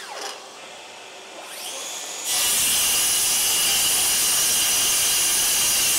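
Bosch GKS18V-25GCN 7-1/4 in brushless cordless circular saw cutting through two stacked sheets of OSB subfloor. Its motor winds down in falling pitch at the start, spins up again about two seconds in, then runs steadily under load through the cut.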